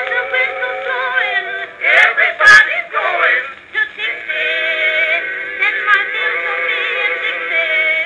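Edison Blue Amberol cylinder record playing through a phonograph horn: an early acoustic recording of voices singing with band accompaniment. The sound is thin and boxy, with no deep bass or high treble.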